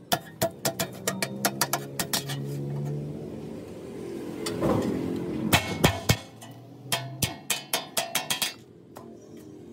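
Hammer striking a steel sheet held on an iron anvil block, a rapid series of sharp metallic taps in several runs with short pauses, as the sheet is beaten and bent into shape.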